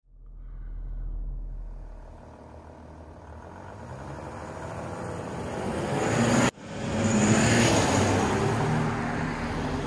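Audi A6 allroad 3.0 BiTDI twin-turbo V6 diesel, with a Kufatec sound booster adding a synthetic exhaust note, accelerating gently towards and past the listener in Comfort mode. The sound swells as the car approaches, drops out abruptly for a moment about six and a half seconds in, then is at its loudest as the car goes by close.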